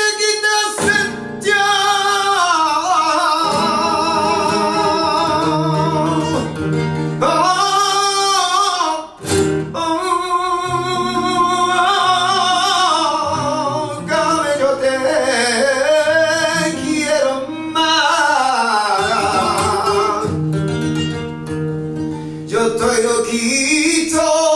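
Male flamenco singer (cantaor) singing long, wavering, ornamented vocal lines over a flamenco guitar, with a short break in the voice about nine seconds in.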